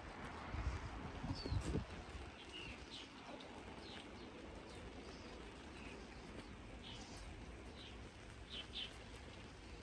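Small birds chirping in short, scattered calls over a steady hiss of rain, with a few low thumps in the first two seconds.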